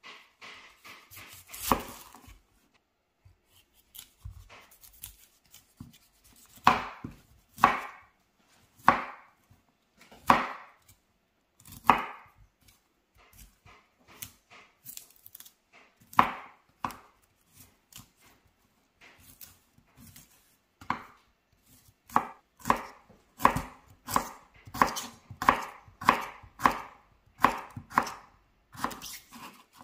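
Kitchen knife cutting broccoli on a bamboo cutting board: separate knocks of the blade through the stems onto the board, spaced and irregular at first, then a quicker, steadier run of cuts, about one to two a second, in the last several seconds.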